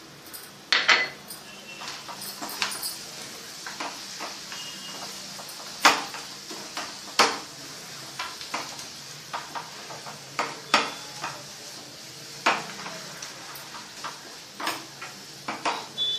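A spatula knocking and scraping against a frying pan while thick carrot halwa is stirred to mix in fried cashews, almonds and raisins. The knocks are irregular, a second or two apart, with a few louder clacks.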